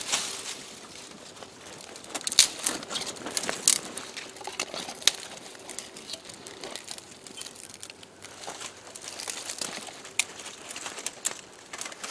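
Small dry sticks being snapped by hand and laid onto a small, newly lit campfire: irregular sharp snaps and crackles with some rustling.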